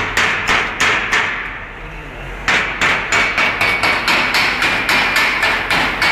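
A hand hammer strikes a steel workpiece repeatedly to knock the flux off a gas weld. It hits about three times a second, pauses for about a second, then resumes faster at about four strikes a second, and the metal rings under the blows.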